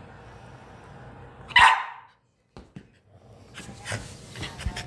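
A puppy barks once, a single short bark about one and a half seconds in. Light clicks and rustling follow near the end.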